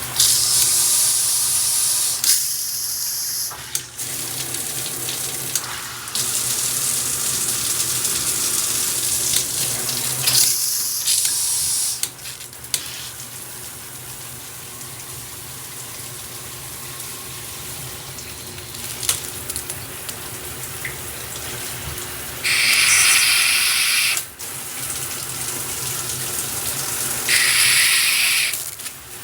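Water spraying from an Oxygenix Drench dual shower head and its handheld sprayer: a steady hiss of running water that grows louder and brighter in several stretches of a few seconds each, twice near the end.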